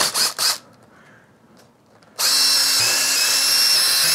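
Cordless power driver with a socket spinning out a rocker cover bolt on a Subaru cylinder head: a steady motor whine that starts about two seconds in and runs for about two and a half seconds. It is preceded by a few short scraping strokes at the very start.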